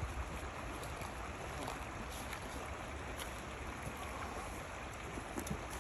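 Steady rushing outdoor background noise with no clear pitch, broken by a few faint light ticks.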